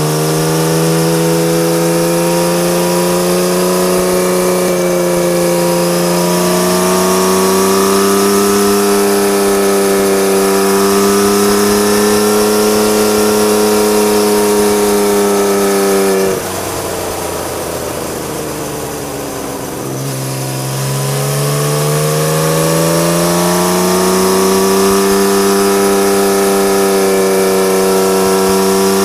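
Honda CBX1000's air-cooled inline-six engine through a loud modified Marving exhaust, pulling under load with its pitch slowly rising. About 16 seconds in the throttle is shut and the note drops away, quieter and lower, for about four seconds; then it picks up again and climbs steadily in pitch.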